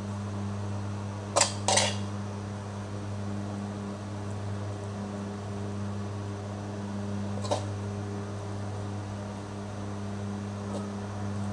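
A steady low mechanical hum, like an electric fan motor. Over it come two quick clicks of a metal spatula knocking against the pan about a second and a half in, and a fainter one midway.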